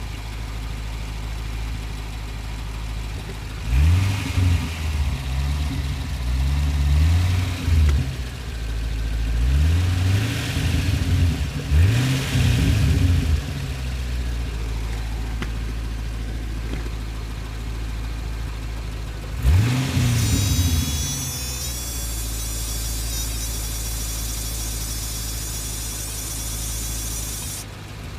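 A GTO's V8 idles in neutral and is blipped with the throttle in three groups of quick revs, a few seconds in, near the middle, and about two-thirds through. This is done to bring out a weird noise the owner has not yet identified. A high, rapidly fluttering hiss joins in after the last revs and stops shortly before the end.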